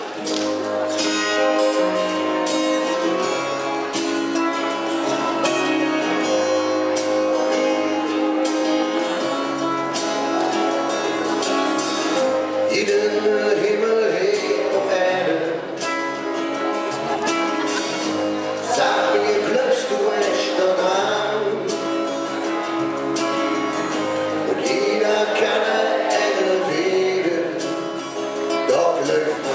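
A band playing live: acoustic guitars and drums, with a male lead voice singing from about twelve seconds in.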